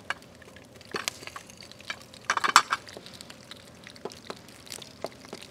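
Scattered light clinks and taps of kitchen utensils and dishes, with a short burst of clatter about two and a half seconds in.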